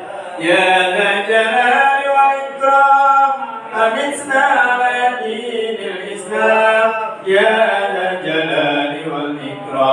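Unaccompanied chanting of Arabic dhikr: long, melodic phrases of a few seconds each, with brief pauses between phrases.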